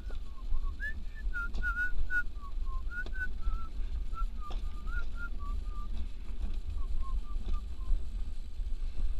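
A person whistling a tune in short, wavering notes, over the steady low rumble of an alpine coaster sled being towed uphill on its metal track, with a few sharp clicks.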